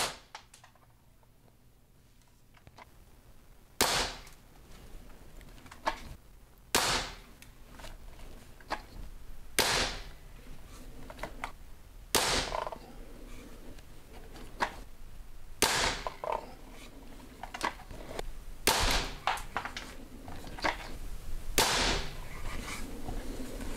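Diana 48 side-lever spring-piston air rifle firing pellets through a chronograph: seven sharp shots about three seconds apart, starting a few seconds in, with fainter clicks and knocks between the shots.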